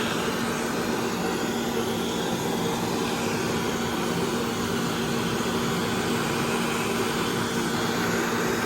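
Gas torch burning with a steady rushing hiss and a low hum as it heats a bare engine block to burn off grease and moisture before painting. It cuts off suddenly at the end.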